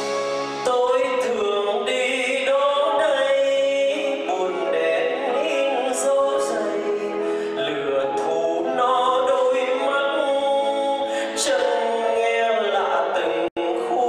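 Male vocalist singing a slow Vietnamese bolero song with live band accompaniment, the voice holding and bending long notes. The sound cuts out for an instant near the end.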